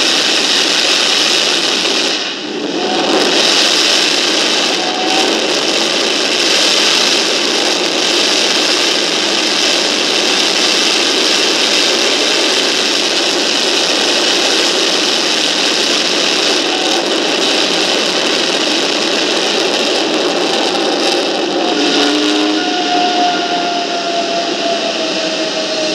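General Electric J79-11B turbojet running at high power on an open test stand, a loud, steady jet rush with a brief dip about two seconds in. Near the end, as the nozzle glow fades and power comes down, faint whistling tones gliding slowly downward creep in: the partial-power howl of an engine with its original standard combustor liners and short-petal nozzle.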